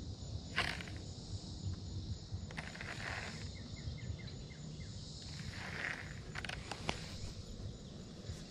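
Steady high buzz of summer insects, over a low rumble, with a few sharp clicks and a short run of quick ticks about four seconds in.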